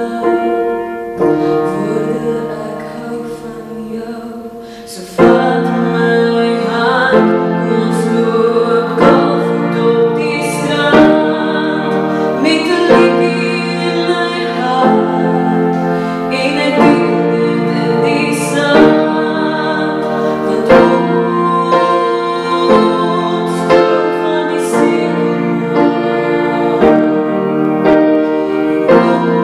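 A woman singing an Afrikaans song to her own upright piano accompaniment. It is softer for the first few seconds, then the piano and voice come in much louder about five seconds in.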